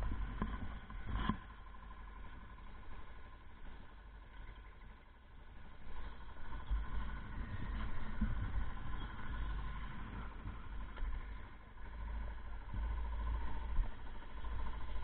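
Motorcycle engine idling steadily, over a low wind rumble on the camera's microphone.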